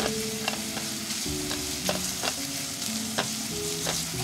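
Minced ginger, garlic and dried shrimp sizzling in oil in a pot, with a utensil clicking against the pot about twice a second as they are stirred.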